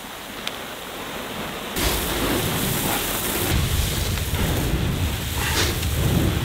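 Chicken-manure fertilizer pellets pouring into a fertilizer spreader's hopper and being stirred by hand: a steady, rain-like rushing. It grows louder about two seconds in, with a low rumble underneath.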